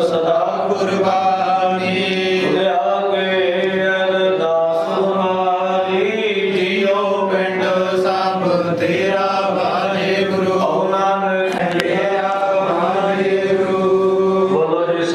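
Devotional chanting of a Sikh prayer in long, drawn-out melodic phrases, heard through a microphone and PA over a steady low drone.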